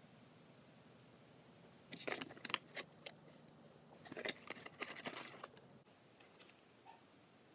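Firecrackers and their small cardboard box being handled: light clicks and rustles as the paper-tube firecrackers rattle in the box and the lid is folded shut, in two short clusters about two seconds in and again about four seconds in.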